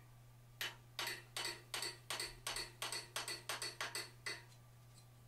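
Hand hammer striking a handheld forging tool held on red-hot steel, setting down the brow of a forged bear's head: a quick run of about fourteen light, even blows, about four a second, that stops a little after four seconds in.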